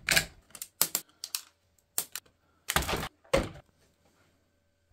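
Packaging being handled and opened by hand: a run of irregular sharp clicks, taps and short scrapes, then quiet for about the last second.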